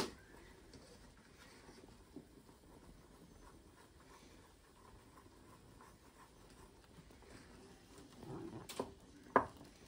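Faint scratching and light tapping of a wire whisk stirring thickening gravy in a saucepan, with a sharp knock at the start and a couple more near the end.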